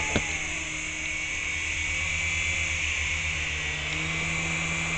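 Battery-powered RC helicopter hovering: a steady electric-motor whine over the fast buzz of the rotor blades, with its pitch stepping up slightly about three seconds in.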